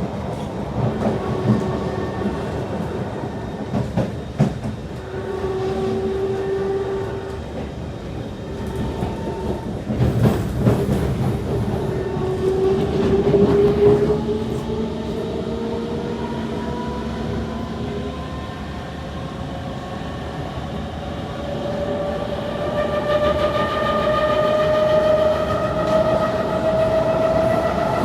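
Kawasaki C151 metro train running on the track, with wheel-on-rail rumble and occasional sharp knocks in the first half. From about halfway in, the GTO chopper traction motors give a whine that climbs steadily in pitch as the train picks up speed.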